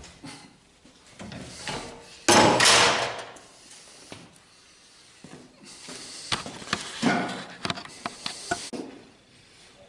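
A steel pipe lever set down on a wooden workbench with a loud scraping clatter lasting about a second, followed by quieter rummaging with scattered knocks.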